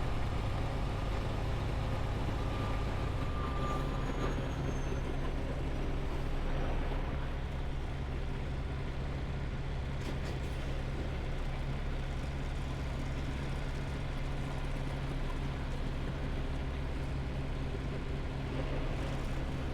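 Semi truck's engine running steadily, a low even drone.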